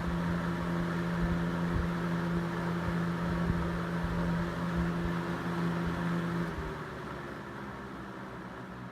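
Lakewood P223 box fan's McMillan electric motor running with a steady low hum and the rush of moving air. About six and a half seconds in, the hum changes and the sound gets quieter.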